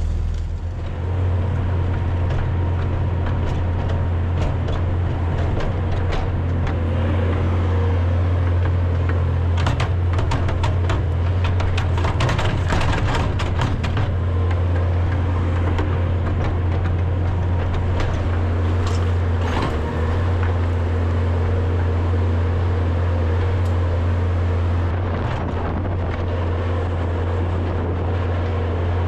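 Tractor engine running steadily while working a loader to clear out manure bedding, with a stretch of clattering and scraping from about ten to fourteen seconds in and a few more knocks near twenty seconds.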